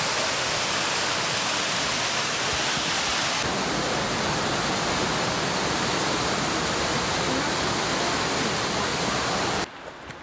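Waterfall cascading down over rocks: a steady rush of falling water that cuts off abruptly near the end.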